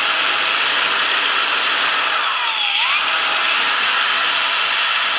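Cordless brushless angle grinder (LiBesta 21V) running freely with no load, apparently on its first speed setting: a steady high whir with no odd noises. Its pitch dips and rises briefly about halfway through.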